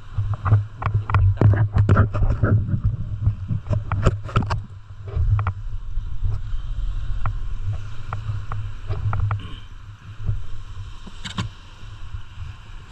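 A flurry of knocks and clatter against a small wooden fishing boat as the catch and gear are handled in the hold, thinning out after about five seconds, over a steady low rumble.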